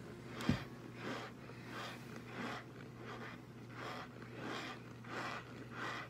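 Someone chewing a mouthful of dry cornstarch: soft, rhythmic crunching at about two chews a second. One sharp knock about half a second in, over a steady low hum.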